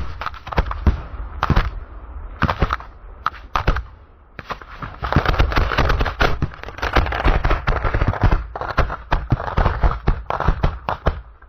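Fireworks going off in a rapid, irregular string of sharp pops and cracks. It thickens into dense, continuous crackling about four seconds in.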